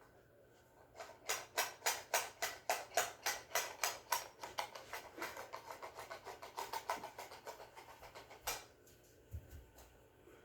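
A rapid, evenly spaced series of sharp clicks or taps, about four to five a second, fading gradually, then a single louder click about eight and a half seconds in.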